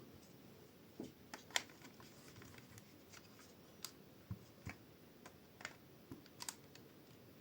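LEGO bricks clicking and tapping as pieces are handled and pressed together: a dozen or so small irregular clicks, the sharpest about one and a half seconds in.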